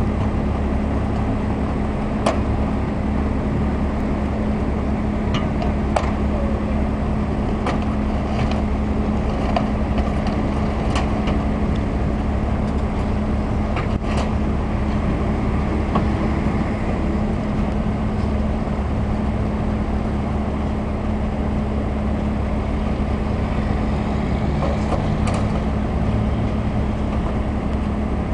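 Heavy wrecker's diesel engine running steadily under load while its winch cable pulls an overturned semi-trailer upright, a constant low hum. A few short sharp clanks or knocks stand out now and then.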